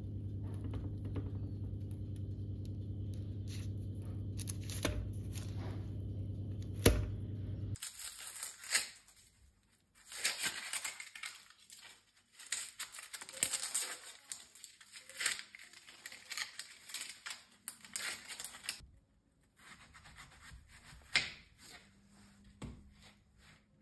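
A steady low hum for about the first eight seconds. It stops abruptly and gives way to irregular crinkling and rustling, like paper or plastic being handled or torn.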